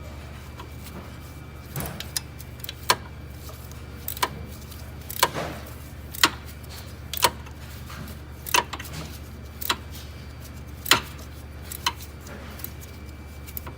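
14 mm wrench tightening the bolt of a new belt tensioner pulley, sharp metal clicks about once a second.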